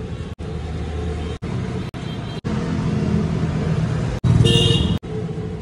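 Steady low rumble of street traffic, chopped by abrupt cuts about every second. A little past four seconds in, a louder sound with a steady high tone sits over it for about half a second.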